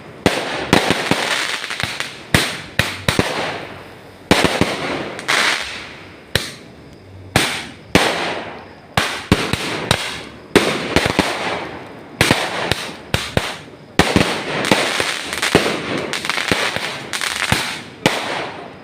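Aerial fireworks bursting in quick succession, sharp bangs one after another, each trailing off into a crackling fizz.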